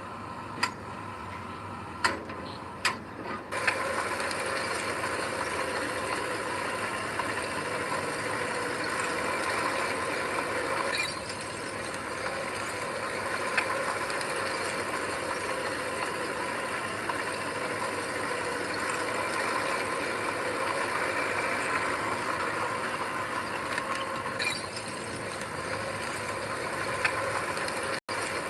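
Heavy earthmoving machinery, a bulldozer or dump truck, with its diesel engine running steadily. A few sharp knocks come in the first three seconds, and the engine gets louder a little after that.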